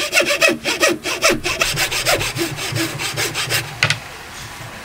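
A thin hand saw blade worked back and forth across the wood of a dovetail joint in quick, short strokes, about three a second. The strokes stop with a single click just before four seconds in.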